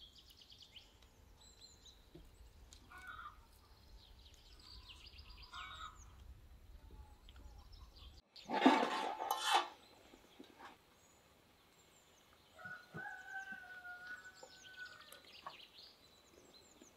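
Outdoor farmyard ambience: small birds chirping and chickens calling, with a rooster crowing for a couple of seconds about three-quarters of the way through. About halfway a short, loud rattle, which fits shelled broad beans tumbling into a ceramic bowl, is the loudest sound.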